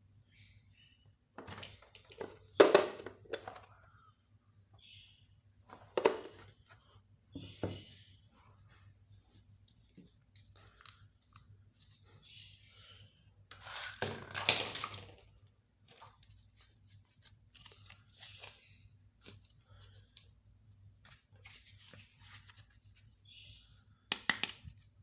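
Hands unboxing a miniature plastic toy kitchen set: scattered rustles and clacks of packaging and small plastic pieces, with a longer crinkling stretch about halfway through. A faint steady low hum underneath.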